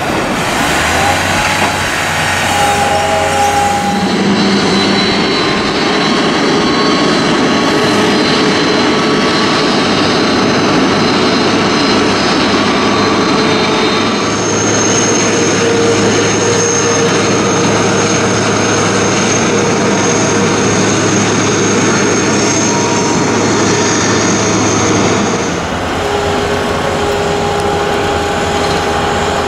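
Airliner jet engine noise at an airport: a steady rumble with several whining tones. A high whine comes in about halfway through and stops a few seconds before the end, when the sound changes.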